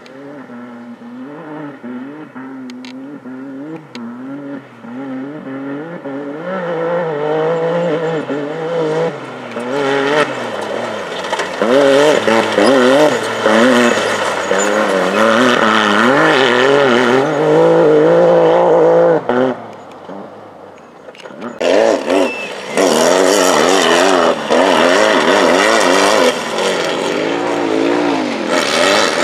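Off-road race vehicle engines revving up and down as they run through whoops, coming closer and louder over the first dozen seconds. The sound breaks off about two-thirds of the way through, then a second loud pass of engine and gravel noise follows.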